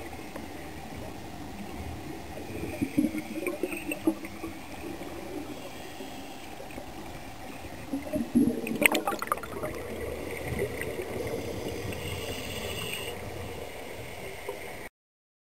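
Underwater sound through a camera housing: scuba divers' exhaled regulator bubbles gurgling in two bouts, around three seconds in and again, louder, around eight to ten seconds in, over a steady underwater hiss. The sound cuts off suddenly near the end.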